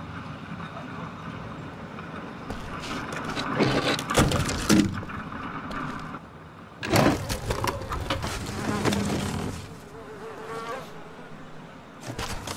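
A steady buzzing with several knocks and clatters, the loudest about seven seconds in.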